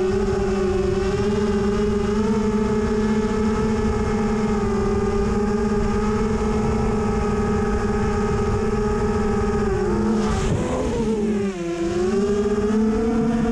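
Brushless motors and propellers of an FPV freestyle quadcopter whining at a steady pitch in flight, with a rushing noise underneath. The pitch drops about ten seconds in as the throttle eases, then comes back up.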